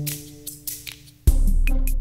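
Background music: a held chord fades away, then just past halfway an electronic beat with deep bass and sharp drum-machine hits kicks in.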